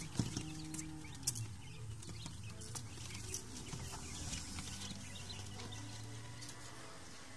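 Newly hatched quail chicks peeping in short, high calls, with a few sharp clicks, over a steady low hum.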